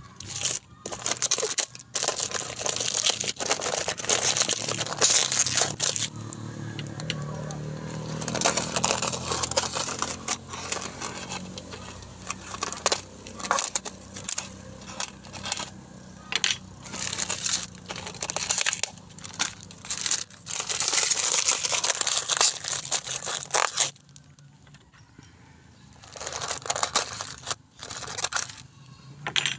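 Plastic and foil wrapping of a new motorcycle tire being handled, torn and crumpled by hand, in irregular rustling bursts with a short lull near the end.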